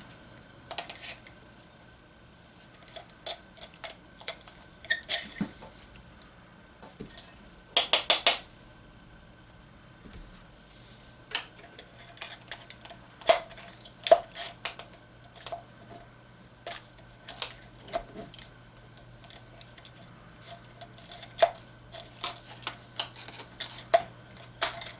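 Needle-nose pliers working inside a gutted tubular paper capacitor, picking at its thin folded aluminium foil: irregular small metallic clicks and scrapes, with a short cluster of them about eight seconds in. A faint steady hum lies underneath.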